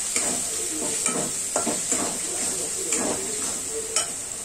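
Onion-and-spice masala sizzling in oil in a steel kadhai, stirred with a plastic spatula that scrapes across the pan about once a second over a steady frying hiss.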